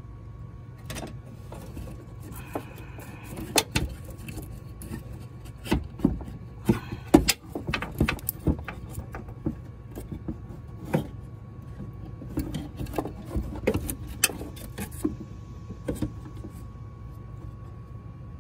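Scattered clicks, knocks and rattles of hands working at a pickup's removed horn assembly and its wiring connectors, over a steady low hum.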